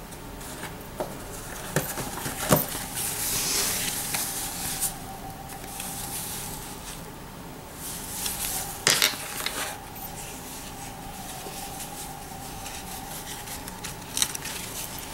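Unpacking sounds: a few light knocks and clinks as a metal ReFa CAXA RAY facial roller is set into its box tray, the loudest about two and a half seconds in, with rustling as a fabric pouch and cloth are pulled out and handled.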